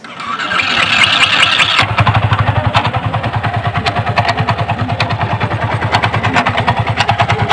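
Yamaha R15 V3's 155 cc single-cylinder engine turning over on the starter, catching after about two seconds and then idling with a rapid, even pulse and sharp ticking clatter on top. This is the abnormal engine sound that the mechanic traces to a roller broken inside the engine.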